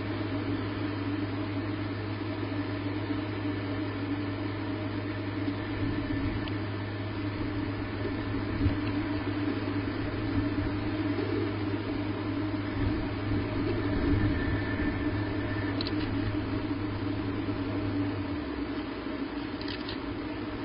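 Steady low electrical hum over a constant hiss, with the hum cutting out near the end. A few soft low thumps come through in the middle.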